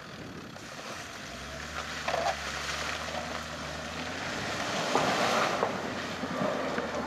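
Land Rover Discovery 4x4 driving off-road up a rutted sandy track, its engine a low steady note under gusts of wind on the microphone, with a few knocks and louder rushes of noise about five seconds in as it climbs.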